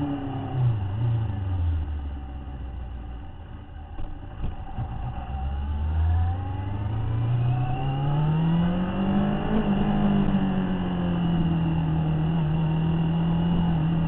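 Motorcycle engine riding along. The revs drop in the first couple of seconds, stay low for a few seconds, then climb steadily as it accelerates and settle into a steady cruise.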